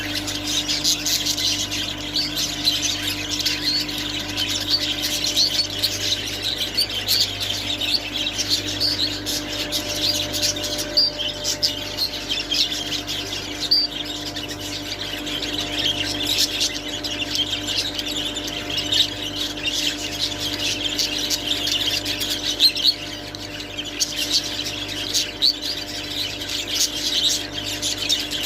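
Budgerigars warbling and chattering continuously in quick chirps and squawks, over a steady low hum.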